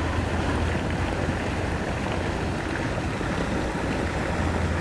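Steady low rumble and hiss of outdoor background noise, unchanging, with no distinct events.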